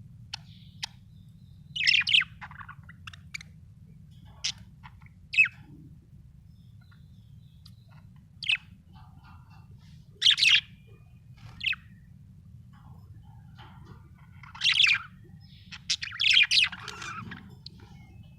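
Budgerigar chirping: short, sharp chirps and squawks in irregular bursts, a few clustered calls louder than the rest, over a faint low hum.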